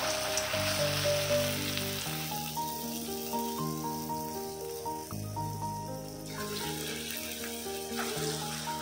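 Urad dal bonda batter deep-frying in hot oil in a kadai: a steady sizzle that eases in the middle and grows again near the end. Instrumental background music plays over it.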